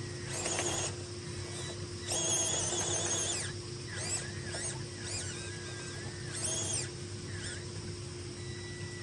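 Birds calling: several short calls that rise and fall in pitch, spaced a second or two apart, over a steady low hum.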